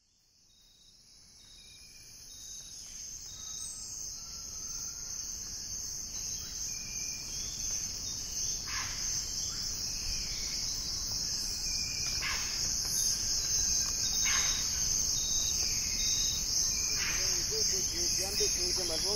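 Tropical forest ambience fading in from silence over the first few seconds: a dense, steady, high-pitched insect chorus, with short bird calls scattered through it.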